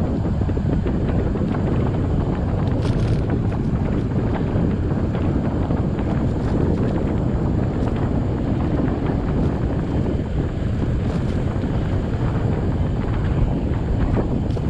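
Wind buffeting a GoPro's microphone while riding a bike, a steady loud rush with no engine note, mixed with the rumble of the ride.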